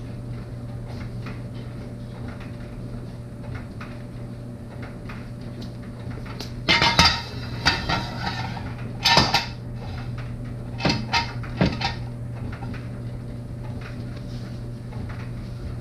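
Metal jack stand being set under the car: clusters of metal clanks and rattles about halfway through, then a few more a couple of seconds later, over a steady low hum.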